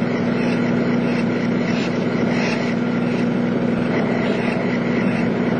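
Steady drone of airport apron machinery around a parked jet airliner at the gate, with a low steady hum under it.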